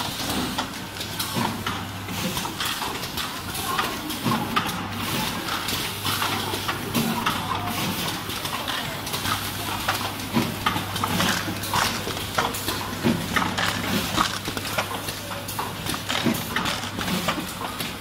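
Production conveyor running with a steady low hum. Plastic wall socket panels and the line's transfer mechanism clack and knock irregularly throughout.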